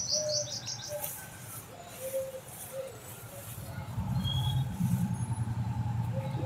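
A bird gives a quick run of high chirps near the start. From about four seconds in, a low, fast-pulsing hum with a steady tone above it grows louder.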